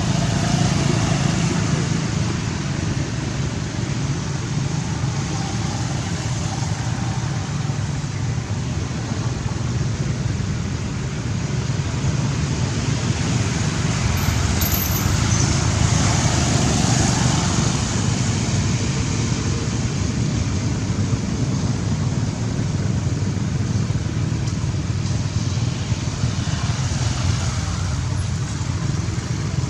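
Steady road traffic noise with a low rumble. It swells as vehicles pass about halfway through and again near the end.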